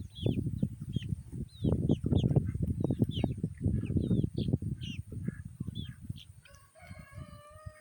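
Chickens feeding: a dense run of low knocks and thumps of pecking close by, with short high chirps throughout. About six and a half seconds in the knocking dies away and a chicken gives one drawn-out, even-pitched call.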